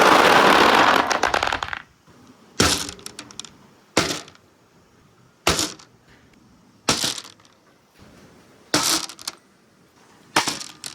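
Many marbles rattling together down a stainless steel marble-run ramp, dying away about two seconds in. Then single marbles clack sharply against the metal six times, roughly a second and a half apart, each with a short rattle after it.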